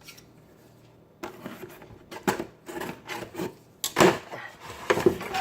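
Packaging handled in irregular scrapes and rubs, cardboard and plastic of a toy's box being worked at to free the car inside, with a sharper scrape about four seconds in.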